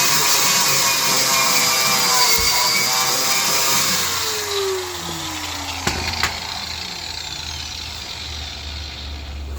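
Electric grinder running at speed on steel, then switched off about four and a half seconds in and winding down with a steadily falling pitch. Two sharp clicks come around six seconds in.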